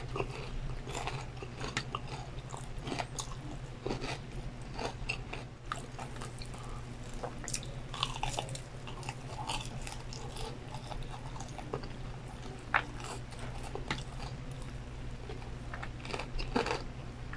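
Close-miked biting and chewing of crispy fried chicken: irregular crackly crunches of the breading and wet chewing, over a steady low hum.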